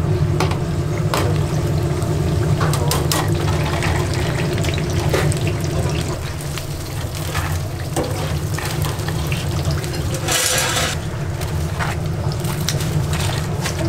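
Kitchen work sounds: water running or being poured, with a brief louder rush about ten seconds in, and scattered clinks of utensils and dishes over a steady low hum.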